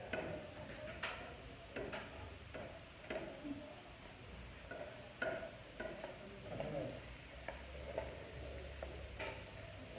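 Diced potatoes frying in a pan, stirred and turned with a spatula: irregular scraping and clicking of the spatula against the pan over a light sizzle.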